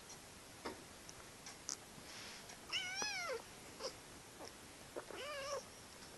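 Kittens play-fighting on carpet: a kitten gives two meows, the first about three seconds in and a shorter one near the end, each rising and then falling in pitch, with faint light clicks and scuffles between them.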